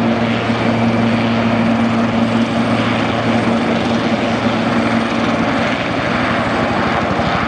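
Sikorsky S-76B helicopter running, its twin-turbine engines and rotor making a loud, steady drone. A steady hum in it fades about halfway through, and a fast low pulsing becomes clearer near the end.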